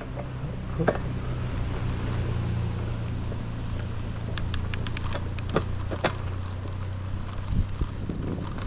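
Bicycle being ridden: a steady low hum of the bike in motion, with sharp clicks and knocks from the bike rattling over bumps, once about a second in and several times in the second half.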